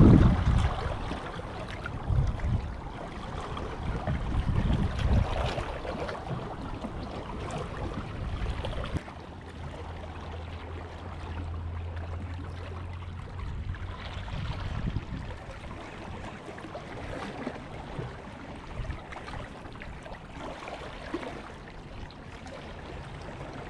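Wind buffeting the microphone in gusts during the first few seconds, over a steady wash of small waves lapping against jetty rocks. A low steady hum joins for a few seconds about nine seconds in.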